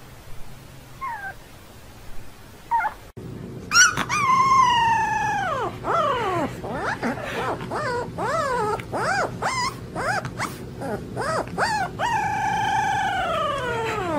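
A puppy howling: a long howl that slides down in pitch, then a run of short rising-and-falling yelps, then another long falling howl near the end.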